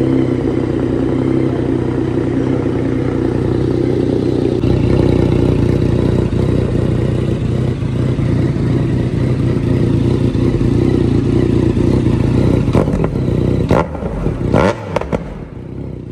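A Yamaha MT-09's three-cylinder engine idling steadily through an aftermarket Fuse Racing coiled-header exhaust, just after being started. Around 14 s the level dips and there are a couple of sharp knocks.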